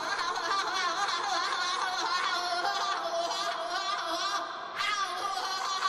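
A high-pitched wordless voice cackling, its pitch warbling up and down almost without a break, with a short drop about four and a half seconds in.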